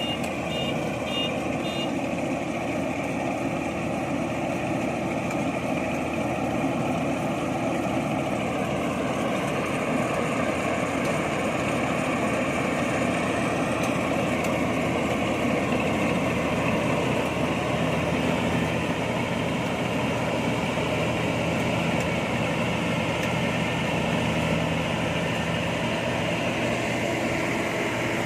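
Rice combine harvester running steadily under load, with a quick series of warning beeps in the first two seconds.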